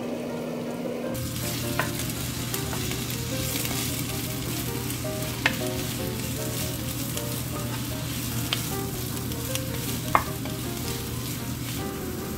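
Vegetables and small sausages stir-frying in hot oil in a frying pan. The sizzling starts about a second in, and a wooden spatula knocks sharply against the pan a few times as it stirs.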